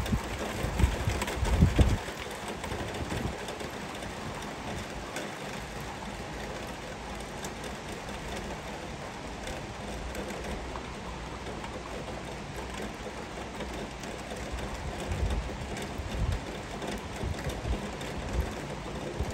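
Heavy rain falling steadily, an even hiss. Irregular low rumbles come through in the first two seconds and again near the end.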